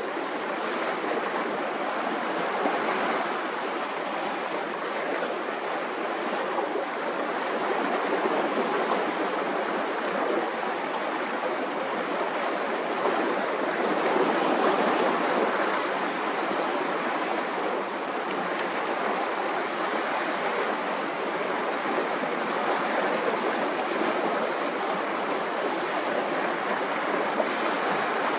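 Steady wash of sea waves on the shore, a continuous rushing that swells a little now and then.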